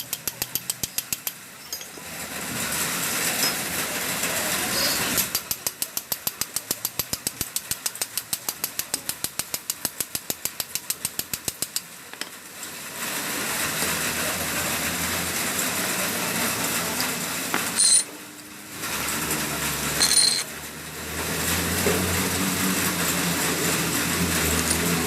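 A power tool hammering in rapid, even blows, about eight a second, in two runs, with a steady hiss between and after them. Two short loud bangs come near the end, and an engine-like hum builds at the very end.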